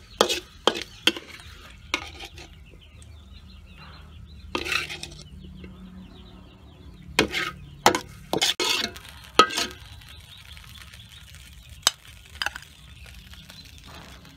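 Metal spatula scraping and knocking against a wok while chicken gizzards and ginger are stir-fried, with faint sizzling between strokes. A quick run of strokes at the start, a pause, then another run about seven to ten seconds in and a couple of single knocks after.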